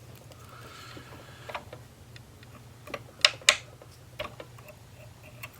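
Scattered light clicks and taps of fly-tying tools and hook at the vise as the thread is tied off, with two sharper clicks close together about three seconds in, over a faint low steady hum.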